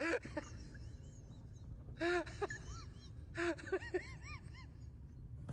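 A small animal whimpering: short, high-pitched squeaks that rise and fall, in three brief clusters about a second and a half apart.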